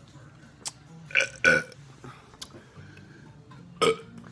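A man belching several times in short bursts, two close together about a second in and another near the end, after chugging a bottle of beer.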